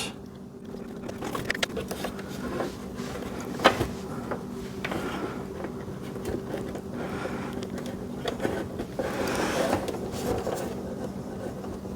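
Small clicks, taps and rustling from hands working stiff welding wire into the welder's wire feed drive wheel and guide, over a steady low hum.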